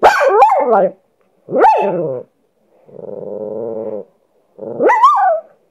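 A pet dog 'talking' back in four pitched vocal calls that slide up and down in pitch, the third a low growl lasting about a second, the last rising sharply.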